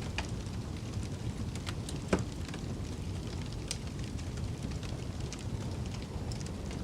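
Wood fire crackling with scattered small pops and one louder pop about two seconds in, over a steady low rush of snowstorm wind.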